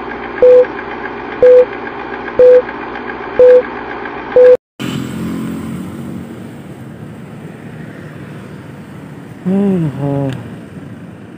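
Film-countdown leader beeping: five short, loud beeps, one a second, over a steady hum. It cuts off suddenly, and steady motor scooter riding noise follows, wind and engine on a helmet-mounted phone microphone, with two short pitched sounds near the end.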